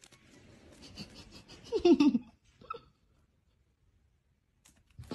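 A person's short, breathy laugh, a few quick pulses falling in pitch, about two seconds in, with faint rustling before it.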